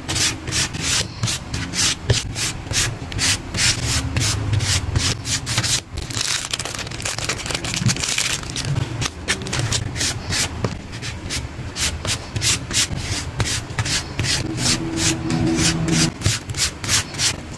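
Paper rubbing and sliding in quick repeated strokes, about four a second, as the paper pieces of a handmade pull-tab picture book are pulled back and forth.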